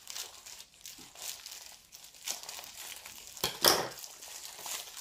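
Packaging crinkling and rustling as it is handled, in short irregular strokes, with one louder crinkle about three and a half seconds in.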